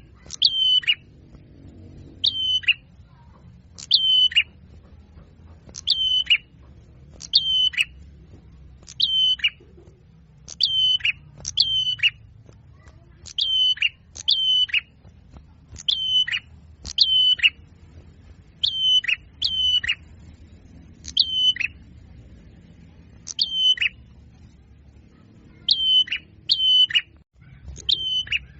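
A small songbird's call, a short high note that drops in pitch, repeated about every one to two seconds, sometimes in quick pairs, with each call the same as the last.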